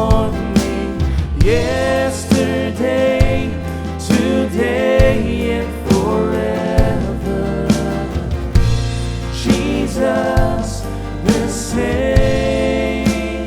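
Contemporary Christian worship song: voices singing a slow melody over a band with bass and drums.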